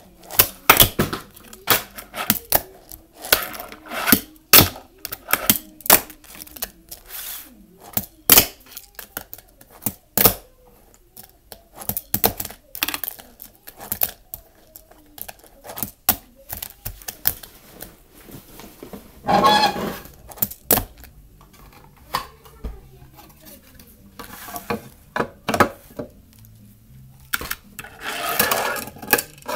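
Fingerboard tricks on a flat quarter pipe: repeated sharp clacks of the small deck popping and landing, with short rolls of its wheels between them. A longer noisy rush comes about two-thirds of the way through.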